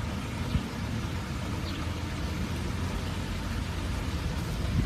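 Steady outdoor rushing noise with a low, fluctuating rumble underneath, and a faint click about half a second in.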